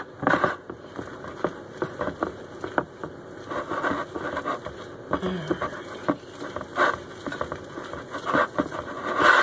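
A hand utensil stirring a thick flour-and-milk batter in a bowl, with quick, irregular clicks and taps against the bowl's side as the flour lumps are worked out.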